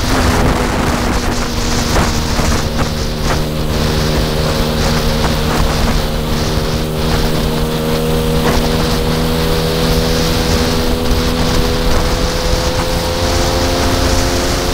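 Lambretta SX200 scooter's single-cylinder two-stroke engine, kitted with a Monza 200 cylinder and breathing through a JL3 snail expansion exhaust, running steadily under way, its pitch creeping slowly upward, with wind on the microphone.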